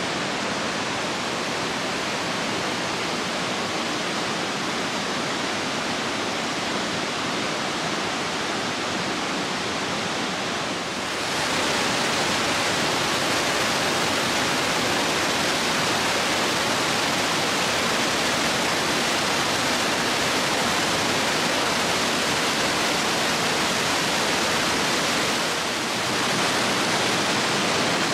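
Rushing water, a steady even rush with no tune or voice in it. It grows slightly louder about eleven seconds in, and again near the end.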